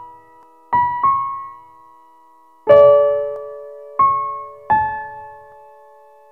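Outro background music: a slow piano playing single notes and chords about a second apart, each struck and left to ring and fade. The fullest, loudest chord comes near the middle.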